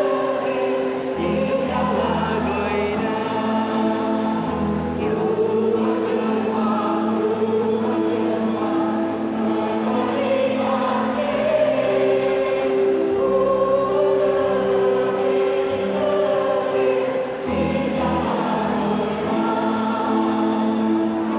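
Mixed choir singing in parts over steadily held accompaniment chords and low bass notes that change every few seconds.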